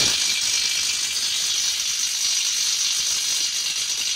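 Cordless Makita impact wrench hammering steadily in reverse on a bolt tightened to 700 Nm, failing to break it loose.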